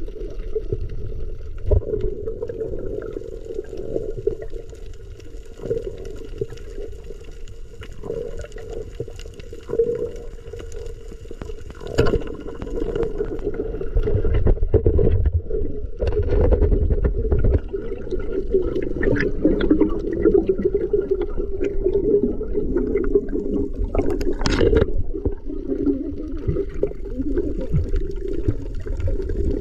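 Muffled underwater sound heard through a camera housing while swimming over a reef: a steady low rush of water with scattered sharp clicks.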